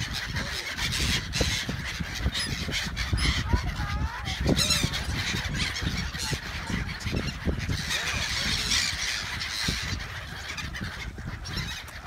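A flock of gulls calling, many harsh overlapping cries at once as they swoop in to be fed. Gusty wind rumbles on the microphone underneath.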